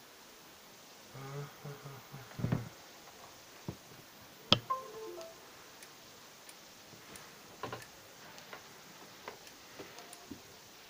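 Western Digital My Passport external hard drive clicking in faint, even ticks about every half second, mixed with a few sharp handling knocks, the loudest about halfway through, followed by a brief tone. The clicking continues with another cable fitted, so the fault lies inside the drive.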